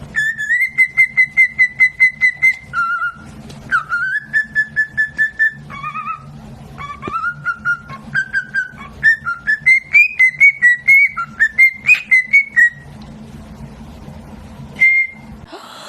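A pet bird whistling phrases of quick repeated notes, several a second. The runs step up and down in pitch, and a single short whistle comes near the end.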